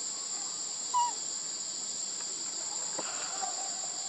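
Steady, high-pitched drone of forest insects, with a short chirp about a second in.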